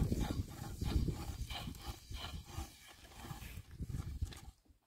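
Irregular light wooden taps and knocks of a thin rolling rod working flatbread dough on a low wooden board.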